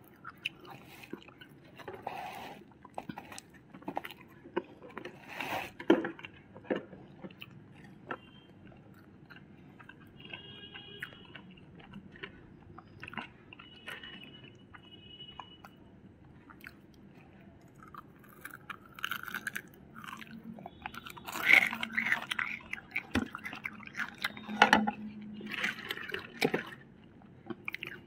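Close-miked eating sounds from two people: chewing and crunching of crispy fried chicken and noodles, with scattered sharp clicks. The crunching gets busier and louder in the last third.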